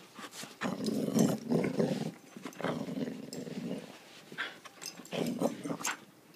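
A dog growling in play while tugging on a toy: a long stretch of rough growls over the first few seconds, then shorter growls near the end.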